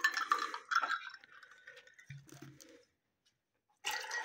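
Water poured from a plastic bottle onto ice cubes in a glass, splashing and trickling, then tapering off after about a second and a half. A second pour into another glass starts near the end.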